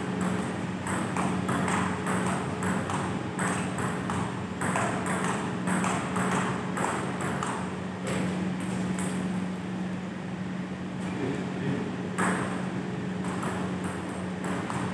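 Table tennis ball clicking back and forth off the bats and the table in a rally, about two hits a second; the rally stops about eight seconds in and play starts again near the end. A steady low hum runs underneath.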